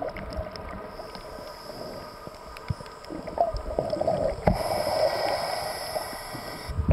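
Underwater sound of scuba divers breathing through their regulators, with exhaled bubbles gurgling. A louder, hissier stretch of about two seconds comes near the end.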